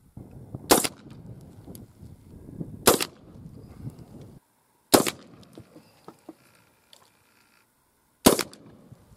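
Four shots from a 12-gauge shotgun firing slugs through a smoothbore barrel. The first three come about two seconds apart, and the last follows after a longer gap of about three seconds.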